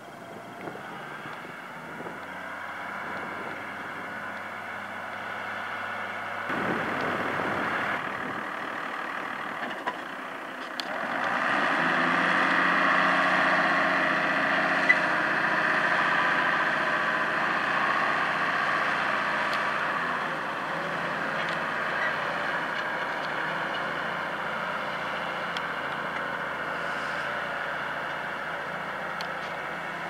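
New Holland 8560 tractor's diesel engine running steadily under load while pulling a reversible plough through the soil. It grows louder about a third of the way in, then slowly eases off.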